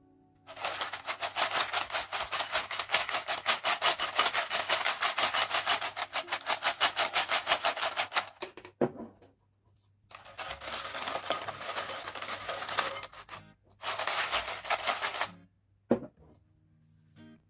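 Crisp fried potato chips rattling and rustling against each other in a glass bowl that is shaken rapidly, in one long spell of about eight seconds and then two shorter ones. A sharp knock comes about nine seconds in and another near the end.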